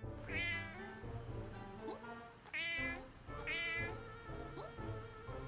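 A cat meowing three times, short calls that rise and fall in pitch, over background music.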